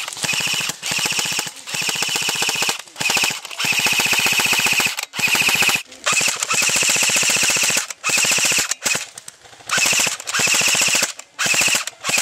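Airsoft electric guns firing full-auto: the rapid clatter of the gearbox cycling, with a motor whine under each burst. About a dozen bursts of varying length, the longest about two seconds, with short gaps between them.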